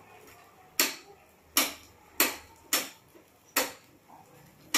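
Metal skewer clicking against a kuzhi paniyaram pan as the dumplings are turned in their cups: about six sharp taps at uneven intervals, each with a short ring.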